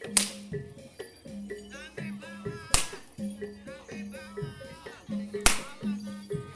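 Live reog gamelan music: a steady repeating pattern of pitched metal tones, with a wavering high melody in the middle. Three loud sharp cracks cut through it, about every two and a half to three seconds.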